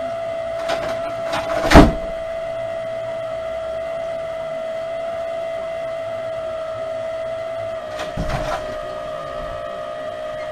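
A steady high-pitched hum, broken by a few sharp knocks, the loudest about two seconds in, and another short run of knocks near the eighth second.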